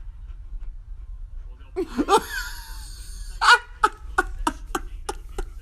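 A person laughing: a gliding, squealing laugh about two seconds in, then a run of short rapid bursts, about three a second.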